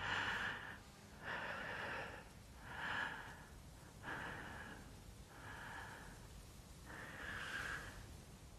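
A person breathing heavily, about six loud breaths roughly a second apart, slowly getting quieter, like panting after exertion.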